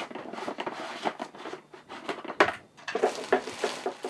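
A plastic screw lid is turned off a watertight container, then plastic wrapping rustles and crinkles as packed items are pulled out, with a string of small clicks and knocks.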